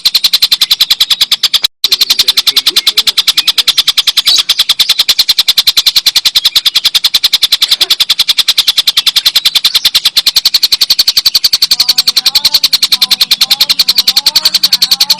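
Tengkek buto (collared kingfisher) giving its long, loud chattering 'ngekek' call: a fast, unbroken rattle of harsh, high notes. It breaks off briefly under two seconds in, and faint chirps of another bird come through near the end.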